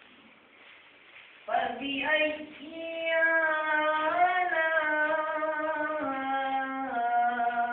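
Melodic Quran recitation (tilawat) in Arabic. After about a second and a half of faint hiss, one voice comes in and holds long, drawn-out notes that bend slowly in pitch.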